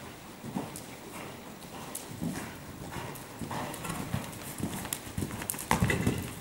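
Hoofbeats of a mare cantering on sand arena footing: a run of thuds, heaviest near the end as she takes off over a jump.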